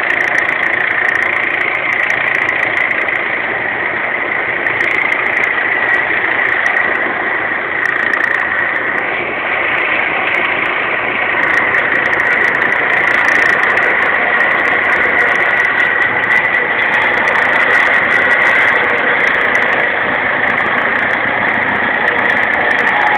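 Helicopter hovering low overhead: a steady high whine over an even rush of rotor noise, a little louder in the second half.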